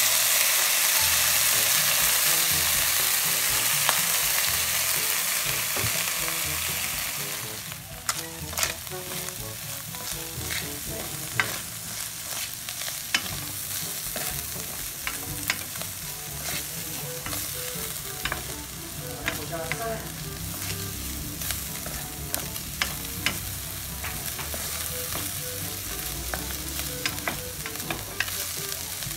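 Flaked tuna frying in hot oil in a frying pan: a loud sizzle as it hits the oil, easing off after about seven seconds. Then the tuna sisig mixture with onions and chillies keeps sizzling more quietly while a spatula stirs it, with frequent sharp taps and scrapes against the pan.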